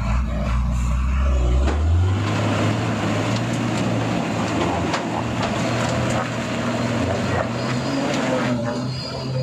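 Diesel engine of a crude palm oil tanker truck working hard as it crawls through deep mud. Its note steps up about two seconds in and then holds at a steady higher rev.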